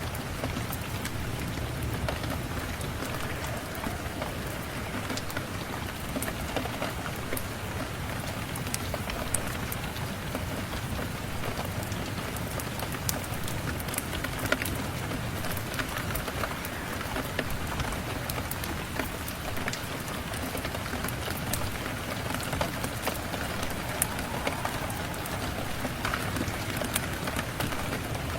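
Steady rain falling, an even hiss with many small sharp ticks of drops scattered through it.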